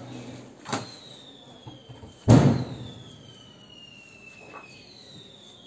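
Two sharp bangs, the second louder, each followed by a faint, high whistle that slowly falls in pitch.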